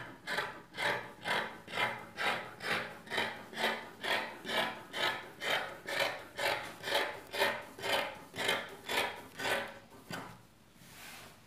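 Scissors cutting through fabric with its lining underneath, a steady run of snips a little over two a second that stops about ten seconds in.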